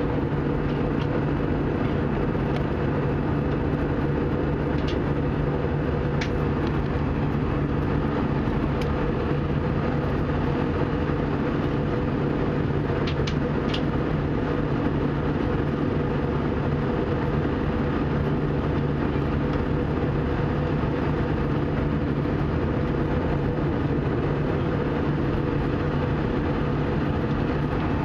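Airbus A320 cabin noise in flight: a steady drone of engines and rushing air with a low hum, and a few faint clicks about six and thirteen seconds in.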